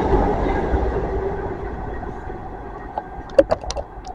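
A GWR Intercity Express Train running past and away along the track, its rumble and wheel noise fading steadily as it recedes. A few sharp clicks come about three seconds in.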